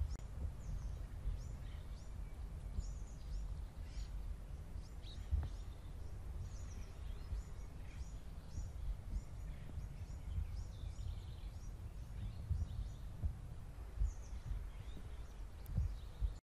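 Background ambience of small birds chirping over and over above a steady low rumble, with a single sharp click about five seconds in.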